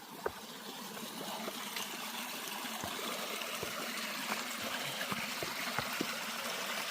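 Shallow creek water running and trickling over rocks, growing steadily louder, with scattered light knocks and one sharper knock just after the start.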